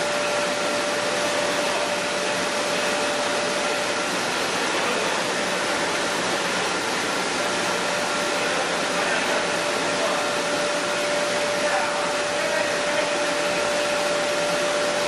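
Chili powder milling machinery running steadily: an even rushing noise with a steady whine on top.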